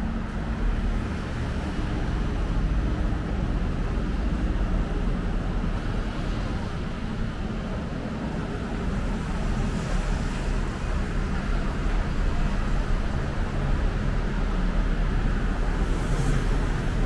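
Steady city road traffic: a continuous wash of engines and tyres from a busy street.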